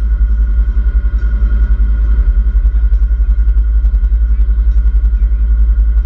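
Open roll-cage off-road buggy running on the move: loud engine noise under a heavy, rapidly fluttering low rumble.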